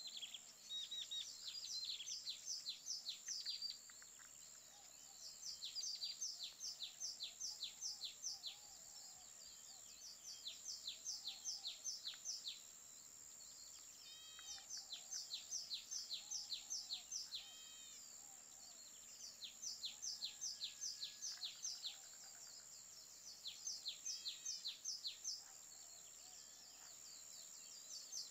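Birdsong: one bird repeats a rapid trill of short down-slurred notes in phrases of two to three seconds, every four to five seconds, with a second bird's shorter arched calls between them. A steady high hiss runs underneath.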